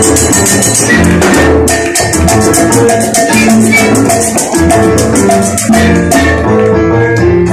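Live charanga band playing a Cuban-style dance tune: flute melody over violin, congas and bass, with a fast, even shaker-type percussion rhythm on top.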